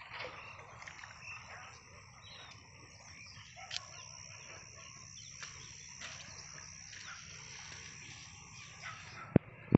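Outdoor rural ambience with birds calling faintly and a steady high-pitched whine through most of it. Two sharp knocks come near the end.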